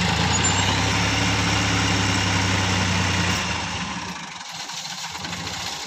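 Farm tractor's diesel engine running steadily, then dropping to a fainter, thinner sound about three and a half seconds in.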